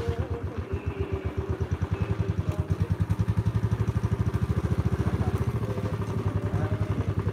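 Motorcycle engine running steadily at low revs, a fast, even low thudding pulse.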